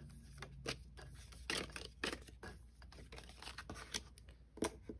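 Soft rustles and light taps of hands handling paper cards and game pieces on a tabletop, in about half a dozen short, irregular strokes.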